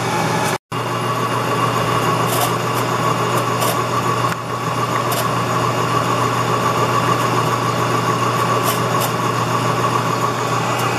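Milling machine spindle running while a boring bar bores out a bearing pocket in an aluminum block. It makes a steady motor hum with a constant whine above it and the hiss of the cut, and chips tick now and then.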